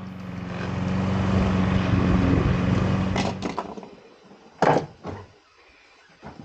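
Lawn mower engine running steadily, getting louder then fading away over about the first four seconds. Then a few sharp knocks and clacks, the loudest about three quarters of the way through.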